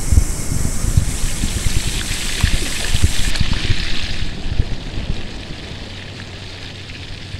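Rushing, water-like flow sound effect with many low thumps, standing for riding down a lava flow. It fades about four to five seconds in to a quieter steady wash with a low hum.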